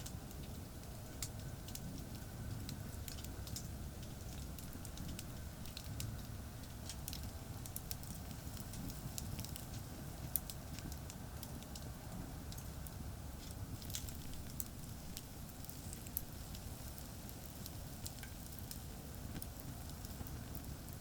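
Wood campfire burning, with frequent sharp pops and crackles scattered throughout, over a steady low rumble of distant highway traffic.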